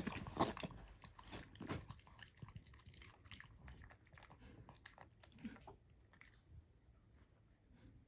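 A pug chewing and crunching a mouthful of chopped vegetables, loudest in the first two seconds and tapering off.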